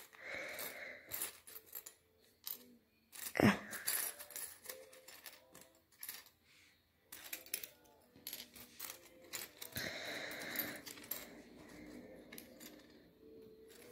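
Small plastic 3D jigsaw puzzle pieces clicking and clattering against each other and the tabletop as they are sorted by hand, with one louder knock about three and a half seconds in.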